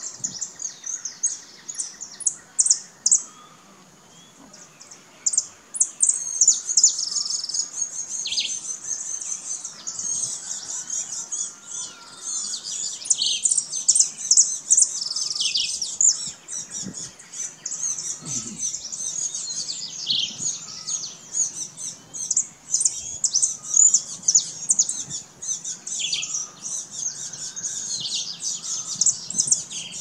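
Saffron finch singing: a few separate high chirps at first, then from about six seconds a fast, unbroken run of high twittering chirps.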